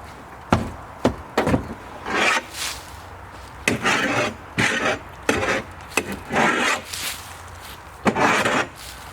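Branches and brush scraping and crunching in about a dozen short, irregular bursts, some longer ones around the middle and near the end, over a low steady hum.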